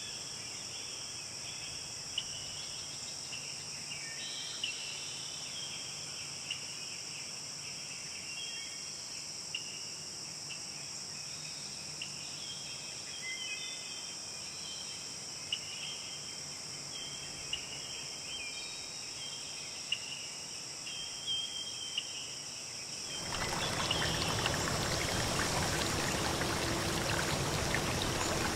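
Steady high insect chorus, like crickets, with scattered short chirps over it. About 23 seconds in it cuts suddenly to a louder, steady rush of running water.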